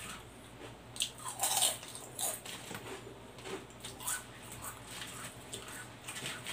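Crisp potato chips crunching in irregular bursts as they are chewed, with chips crackling and rustling as fingers pick through them in a plastic tray.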